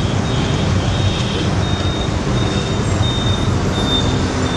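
Steady rumble of busy road traffic, with a thin high tone repeating in short pulses.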